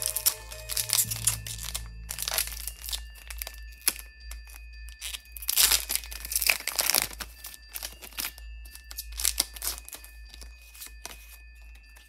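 Pokémon booster pack wrapper being crinkled and torn open by hand: irregular crackling and tearing, loudest in bursts about two and a half seconds in, around six to seven seconds in, and again around nine seconds in.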